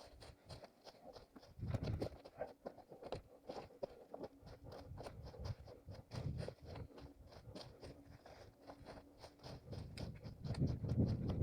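Running footsteps crunching on forest ground, about three strides a second.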